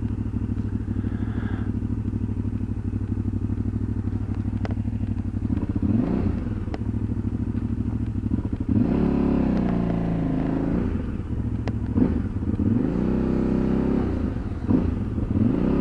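KTM 990 LC8 V-twin motorcycle engine running at low speed, mostly a steady pulsing idle. Its pitch rises and falls several times in the second half as the throttle is opened and closed.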